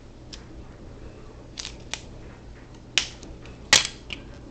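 Pieces of adhesive tape being pulled and torn off a roll: a handful of short, sharp clicks and rasps, the loudest near the end.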